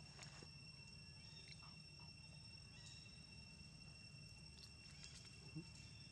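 Faint forest ambience, close to silence: a steady high insect drone with a few soft ticks and light rustles.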